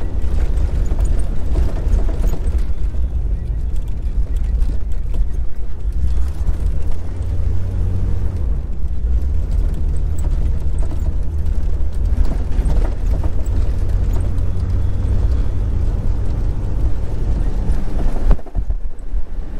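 Jeep Cherokee XJ driving on a bumpy dirt road: steady low rumble of engine and tyres on gravel.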